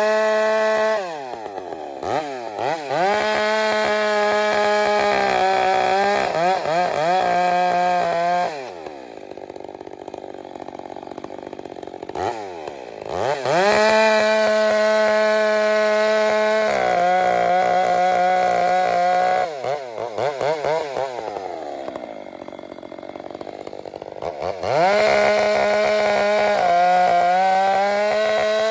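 Two-stroke chainsaw run at full throttle through several cuts, its pitch dipping and recovering under load, dropping to idle about 9 s in and again about 20 s in before revving back up. The chain is not pulling hard into the wood, which the crew puts down to rakers (depth gauges) still set too high on a very sharp chain.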